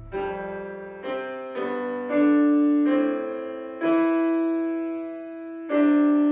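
Electronic keyboard played with a piano sound: a slow run of chords and single notes, a new one struck about every half second to second and left to ring and fade.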